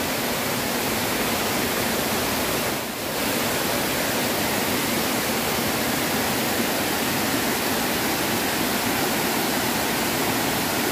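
Water pouring over a stone weir into a river pool: a steady rushing, with a brief dip about three seconds in.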